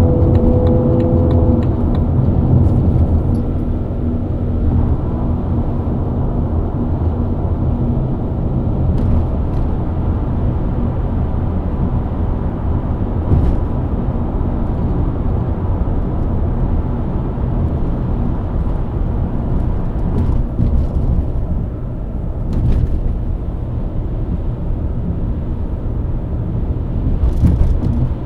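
BMW E90 323i's inline-six engine running at a steady highway cruise, mixed with tyre and road rumble. A clear engine note in the first two seconds or so fades back into the steady drone.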